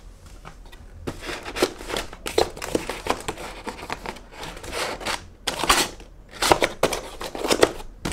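Cardboard laptop box and its cardboard insert being handled by hand: a run of irregular scrapes and rustles as the flaps are pushed and folded, louder in the second half.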